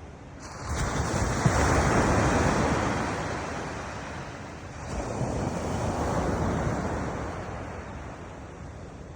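Sea surf: two waves break and wash up the shore, the first swelling about half a second in, the second about five seconds in, each rising to a rush and then fading away.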